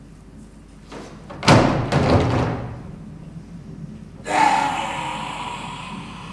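A stage mannequin toppling onto the stage floor with a loud crash about one and a half seconds in. A second sudden hit follows about four seconds in, with a ringing tone that dies away slowly.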